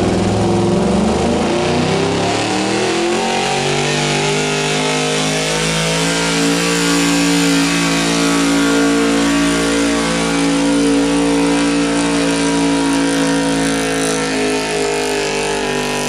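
Chevrolet square-body pickup's engine at high revs under load, pulling a weight-transfer sled. The revs climb over the first three or four seconds, then hold steady and high.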